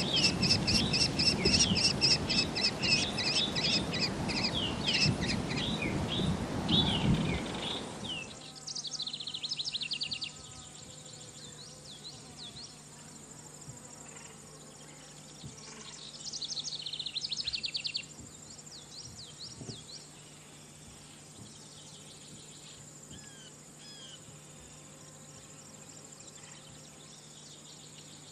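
American kestrel chick at its nest-box entrance giving rapid, high, evenly repeated calls over a loud rushing noise. About eight seconds in this changes to quieter summer ambience: steady insect trilling and a faint hum, with a rapid series of bird calls twice.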